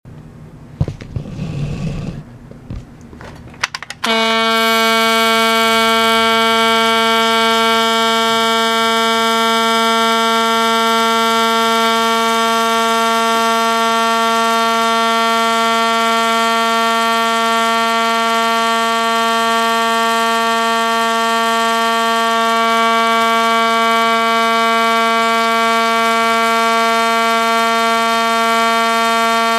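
A few knocks as the fire alarm pull station is pulled, then about four seconds in a Simplex 4051 fire alarm horn starts sounding with a loud, steady buzz. Its volume screw is tightened all the way down, which gives it the sound of a B-series DC horn.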